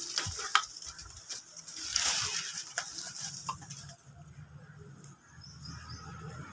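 Crunching and rustling of footsteps through dry leaves and rubble, with a few sharp clicks. It quietens about four seconds in, leaving a low hum and a few faint high chirps.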